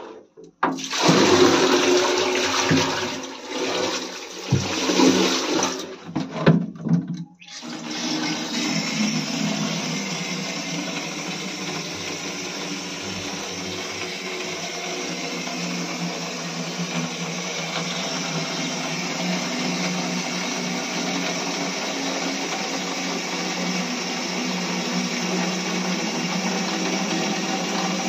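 Water from a wall tap running into a large jug: uneven, broken gushes for the first seven seconds or so, then a steady rushing stream.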